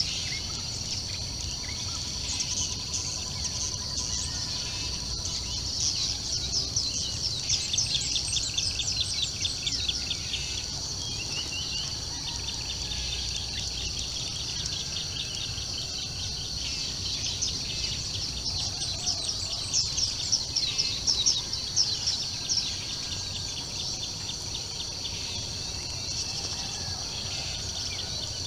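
Birds chirping and singing in rapid runs over a steady, high-pitched insect drone. The birdsong is busiest early on and again about two-thirds of the way through.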